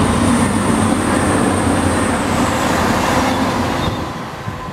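Steam locomotive 60163 Tornado, a three-cylinder Peppercorn A1 Pacific, running past: a loud, dense rushing noise with a thin high tone above it, fading away about four seconds in.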